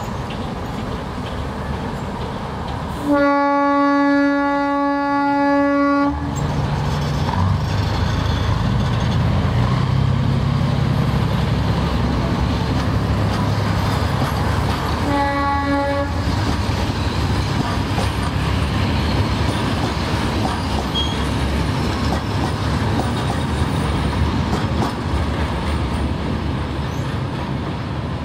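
Narrow-gauge TU2 diesel locomotive hauling passenger coaches away past the platform, with a long horn blast about three seconds in and a short one about halfway through. Under the horn runs the steady low rumble of the diesel engine and the rolling wheels.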